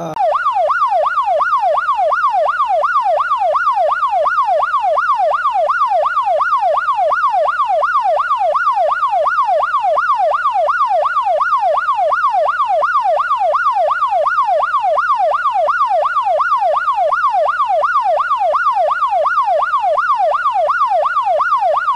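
Electronic ambulance siren in a fast yelp, its pitch sweeping up and down more than twice a second at an even, loud level.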